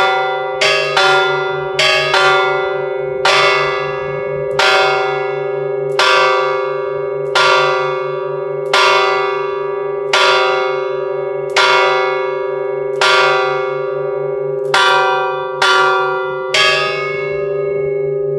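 Church bell tolled by a rope pulled on its clapper. The strokes come about two a second at first and slow to about one every second and a half. The last stroke falls near the end, and the bell's hum rings on after it.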